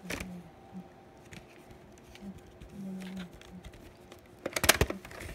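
Hard plastic clicks and rattles of a VHS clamshell case being handled: one sharp click just after the start, scattered light ticks, and a louder cluster of clacks about four and a half seconds in.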